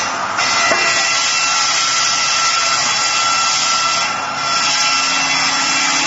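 Electric sawmill's 900 mm circular saw blade cutting through wood: a loud, steady hiss with whining tones. It swells about half a second in and dips briefly about four seconds in before carrying on.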